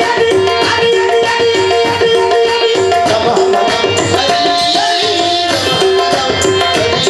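Qawwali ensemble playing an instrumental passage: harmonium holding and shifting sustained melody notes over a fast, steady hand-drum rhythm.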